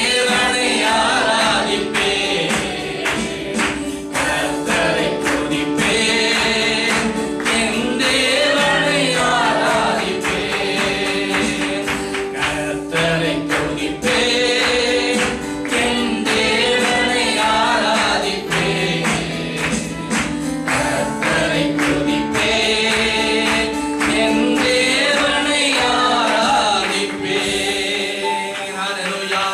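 A group of children and adults singing a Christian worship song together, with keyboard accompaniment and a steady beat.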